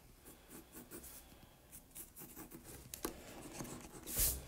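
Pencil scratching lightly on paper as lines are drawn, with a brief louder rustle near the end.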